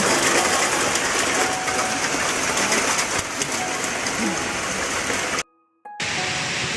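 Steady rushing water noise with faint voices in the background. It drops out abruptly for about half a second near the end, then resumes.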